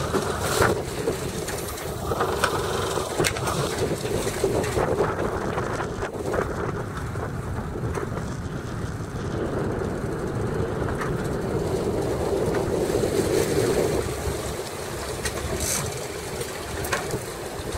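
Boat engine running steadily with wind buffeting the microphone, and a few sharp clicks scattered through.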